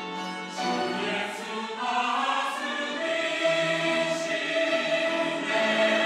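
Mixed church choir of men and women singing a hymn of praise. A new phrase begins about half a second in, and from about three seconds the voices hold a long chord.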